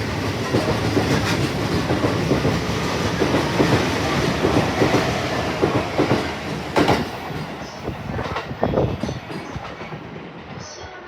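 A train running past a station platform, its wheels clacking over the rail joints, with a few sharp knocks about two-thirds of the way in. The sound then fades as the train moves away.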